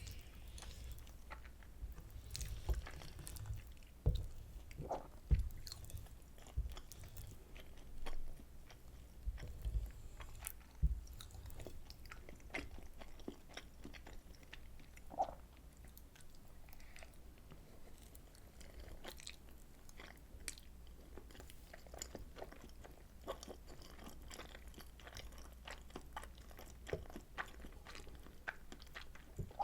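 Close-miked chewing of soy sauce butter egg rice: many small mouth clicks and smacks, with several louder low thumps in the first ten seconds or so, then quieter chewing.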